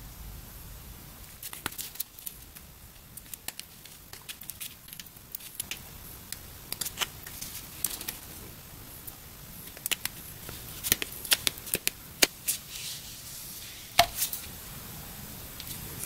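Nitrile-gloved hands handling knife handle scales and a wooden stick while spreading epoxy: irregular small clicks, taps and rustles. They grow busier in the second half, with the sharpest snaps about twelve and fourteen seconds in.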